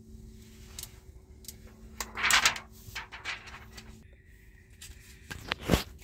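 Handling noises of a wet-wipe packet being picked up and opened: rustling scrapes, a louder rustle about two seconds in, and a short thump near the end.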